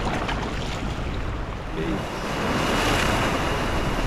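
Sea waves washing and breaking over shore rocks, the surf swelling louder about halfway through.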